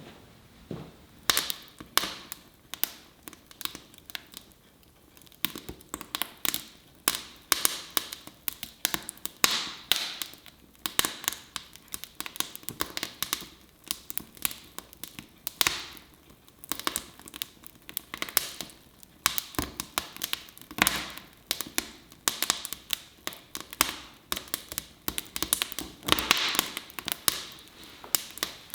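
A long run of irregular sharp taps and knocks, often several a second, with some rustling.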